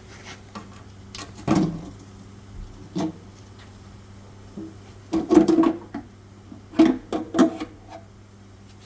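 Irregular clunks, knocks and scrapes of tools and metal engine parts being handled during a big-block engine teardown, the loudest clusters about a second and a half in and again around five to seven seconds in, over a steady low hum.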